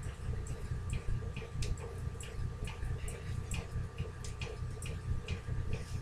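Kitchen knife cutting tofu into small pieces on a cutting board, each cut ending in a light tap of the blade on the board, about three taps a second.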